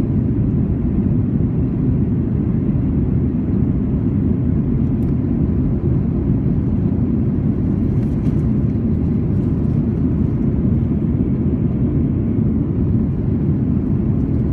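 Steady deep cabin roar of a Boeing 737-900 in flight, from its CFM56-7B turbofan engines and the rush of air over the fuselage. The aircraft is climbing out after takeoff.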